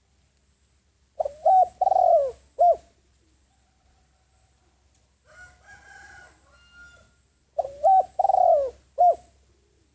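Spotted dove cooing: a male's decoy call, two phrases of about four notes each, some six seconds apart.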